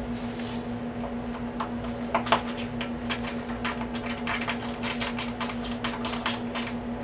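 A hand ratchet clicking in quick strokes as the fuel pressure regulator's mounting bolts are tightened on the firewall. A couple of louder metal knocks come about two seconds in, then a long run of fast clicks through the second half, over a steady low hum.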